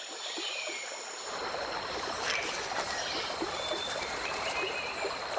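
Amazon River ambience: moving water, with steady high-pitched insect buzzing over it. The deeper part of the water sound comes in about a second in.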